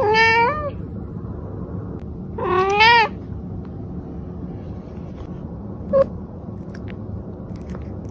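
A cat meowing twice, about two and a half seconds apart, each meow under a second long, then a very short mew about six seconds in.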